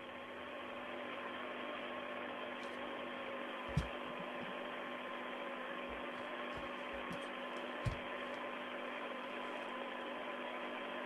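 Steady hiss and hum of an open radio link from the Soyuz spacecraft, with two faint whistle tones held throughout. Two soft knocks come about four seconds apart.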